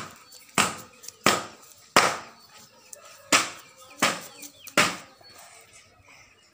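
Hands scooping and pushing loose sand: seven rough, sudden swishes roughly two-thirds of a second apart, with a longer pause in the middle.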